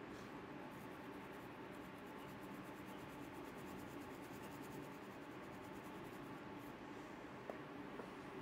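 Faint, fast rhythmic rattle of a small spice jar being shaken to sprinkle dried oregano over a pizza, followed by two light clicks near the end.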